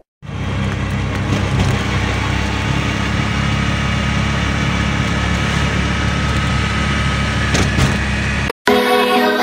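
Auto-rickshaw (tuk-tuk) engine running steadily with road rumble, heard from inside the moving cab. It cuts off near the end and music takes over.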